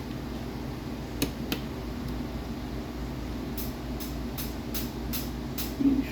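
Light clicks of small metal PC parts being handled as an M.2 SSD heatsink cover is fitted back onto a motherboard: two sharp clicks about a second in, then six evenly spaced light clicks about two a second, over a steady low hum.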